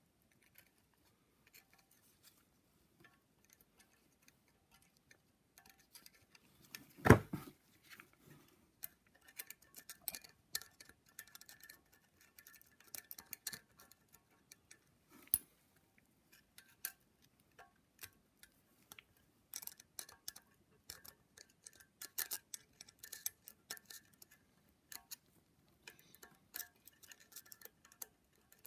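Small metal clicks and taps of hand tools against a valve spring compressor and an aluminium cylinder head while valve keepers are fitted, coming in irregular bunches. One louder knock about seven seconds in and a sharp click about fifteen seconds in.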